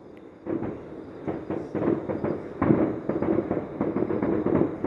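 Distant fireworks going off in a rapid string of bangs and crackles, starting about half a second in.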